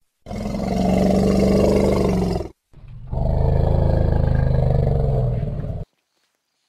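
Elephant giving two long, low rumbling calls, the second starting about three seconds in.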